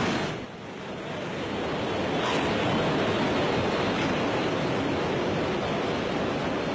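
Ocean surf: a steady rushing wash of waves, dipping just after the start as a louder wave dies away, then building again and holding.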